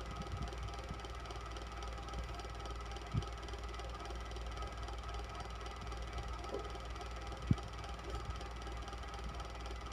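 Electric fan running steadily: a low whirring hum with a faint steady tone above it. Two brief low knocks, one about three seconds in and a louder one about seven and a half seconds in.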